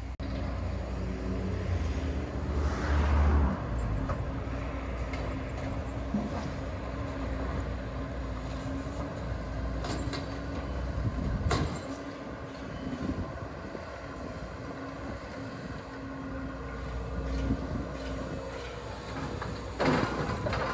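Diesel engine of heavy demolition machinery running steadily, surging louder a few seconds in. A sharp knock comes about halfway through and a louder crash near the end.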